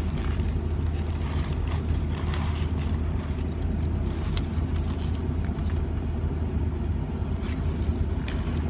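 Steady low hum of a car heard from inside the cabin, with a few faint crinkles and clicks of a paper sandwich wrapper being handled.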